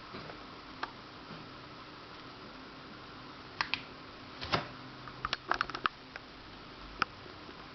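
Scattered sharp clicks and taps of a mobile phone and its packaging being handled, a few in quick clusters over a steady background hiss.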